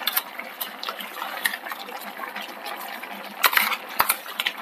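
Chickpea curry boiling in a pan, a steady bubbling with small pops, and a couple of sharper clicks of a spoon against the pan near the end as ground chickpea paste is added.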